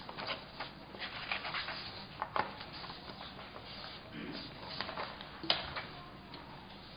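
Sheets of paper rustling and being shuffled close to podium microphones: a run of soft, irregular crackles, with one sharper crackle near the end.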